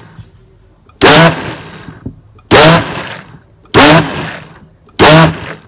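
Countertop blender pulsed four times, about once every second and a quarter, mixing thick muffin batter. Each pulse cuts in suddenly at full loudness and dies away within about a second.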